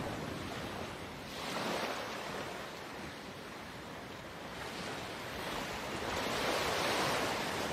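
Sea waves washing in, swelling and falling back three times.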